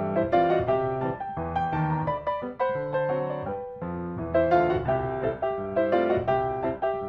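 Background piano music: a steady stream of quick notes.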